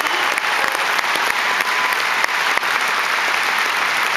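Large concert audience applauding, a dense, steady clapping.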